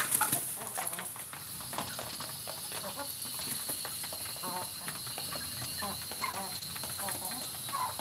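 Free-range village chickens clucking softly now and then as they peck and scratch around their food, with small ticks throughout, over a steady high-pitched background drone.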